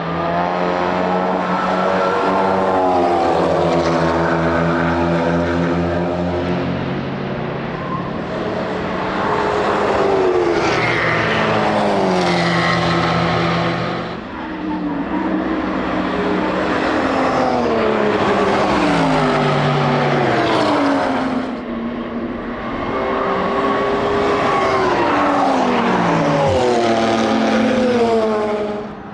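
Racing car engines at high revs passing one after another, in about four loud passes, each engine note falling in pitch as the car goes by.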